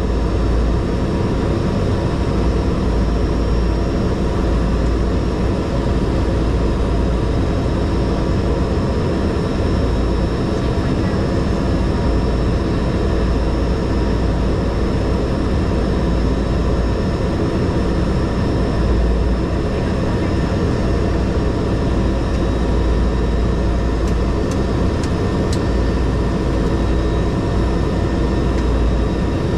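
Cessna 208 Grand Caravan's PT6A turboprop engine and propeller running steadily at low taxi power, heard from inside the cabin: a constant drone with a high whine on top.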